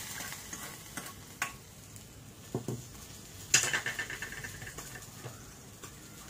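Hot tempering of ghee and spices sizzling briefly in the broth as a small iron tadka pan is tipped over a ceramic bowl. Then scattered clinks of metal on crockery, the loudest a sharp ringing clank a little past halfway as the pan is set down, and a spoon stirring in the bowl.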